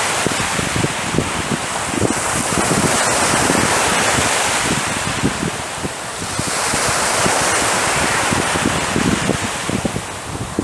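Sea waves washing in and breaking, with a fresh surge building about six and a half seconds in. Wind buffets the microphone throughout.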